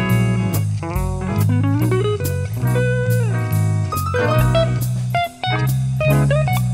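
Background music: a blues-style guitar tune over bass and drums, with guitar notes sliding up in pitch.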